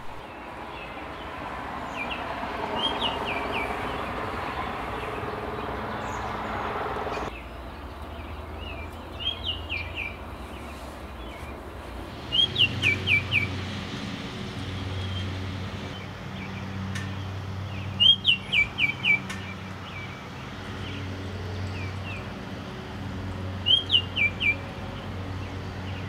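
Male Baltimore oriole singing: five short phrases of a few clear, flute-like whistled notes, a few seconds apart, over a low steady background hum.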